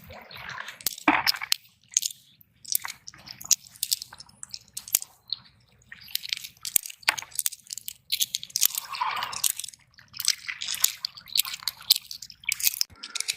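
Footsteps crunching and squelching over a wet shell-and-stone shore at low tide, an irregular run of gritty crunches and clicks.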